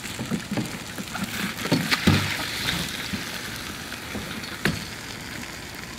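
Smouldering pile of burnt clothes hissing and sizzling after being doused with water, with scattered small clicks and a sharper knock about three-quarters of the way through.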